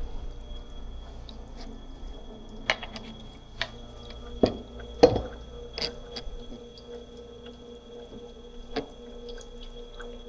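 A 1/2 inch bowl gouge and its sharpening jig being handled and set against a wooden setting block: a handful of sharp metal clicks and knocks, the loudest about halfway through, over a steady hum.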